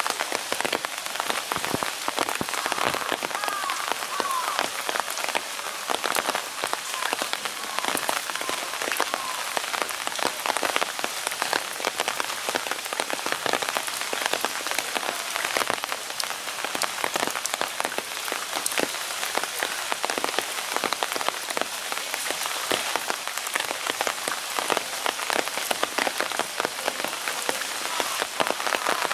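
Steady rain falling, with many separate drops ticking sharply close to the microphone. A few short chirping calls come through about three to four seconds in.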